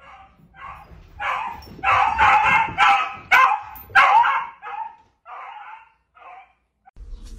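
A dog barking in quick repeated bursts, about two or three a second, loudest in the middle and tapering off near the end.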